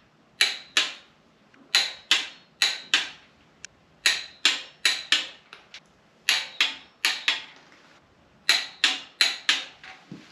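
Snap-on torque wrench tightening cylinder-head bolts to 25 ft-lb: sharp metallic clicks in quick groups of two to five, a pause between the groups.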